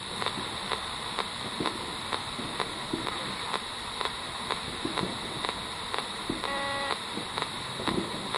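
P-SB7 Spirit Box radio scanning the AM band, giving a steady hiss of static broken by a click about every half second as it jumps from frequency to frequency. A brief pitched tone from a passing station sounds about six and a half seconds in.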